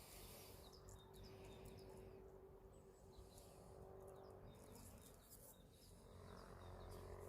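Near silence, with faint bird chirps scattered throughout and a faint steady hum underneath.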